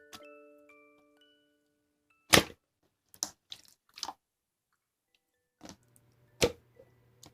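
Chime-like tones ring out and fade, then a series of sharp clicks follows, the loudest about two seconds in. A low steady hum comes in near the end.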